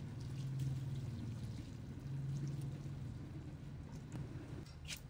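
Hot water poured in a steady stream into a wok over dry pancit canton noodles and vegetables, the stream swelling and easing as it falls. A brief light click near the end.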